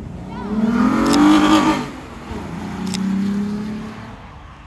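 Sports car accelerating away hard, its engine note rising to a peak, then dipping sharply about two seconds in before pulling up again and fading into the distance, with two sharp cracks along the way.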